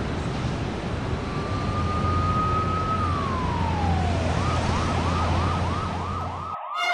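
Emergency vehicle siren over steady city traffic noise: a long wail rises slowly, then falls, then switches to a fast yelp of about four sweeps a second. It cuts off suddenly near the end.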